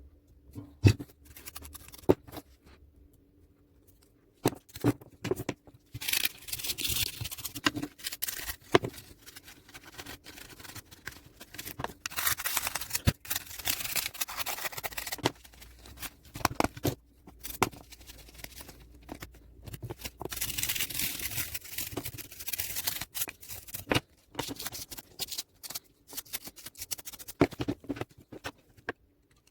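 Hands working on a TV remote control: sharp plastic clicks and taps, with three stretches of scraping or rubbing.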